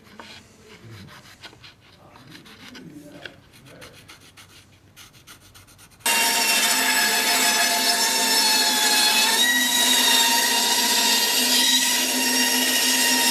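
Faint scratching of a pencil marking out a thin wooden slat. About six seconds in, a band saw starts up abruptly and runs with a steady hum and whine while it cuts the wood for a knife scabbard.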